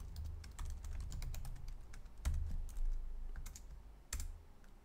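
Typing on a computer keyboard: irregular key clicks, with two louder strokes about two and four seconds in.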